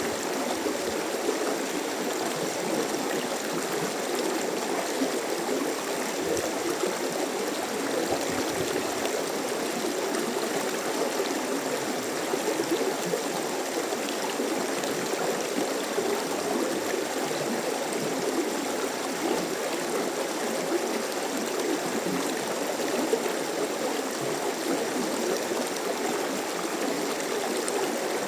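Mountain stream flowing steadily: an even, unbroken rush of water.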